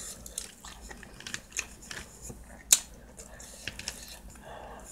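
Eating sounds: a fork clicking and scraping against a plastic takeout tray, with chewing. One sharp click nearly three seconds in is the loudest.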